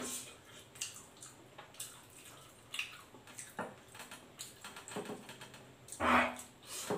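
Close-up wet chewing and lip-smacking of a person eating fried chicken and rice by hand: a string of short, irregular smacks, with a louder one about six seconds in as a handful of rice goes into the mouth.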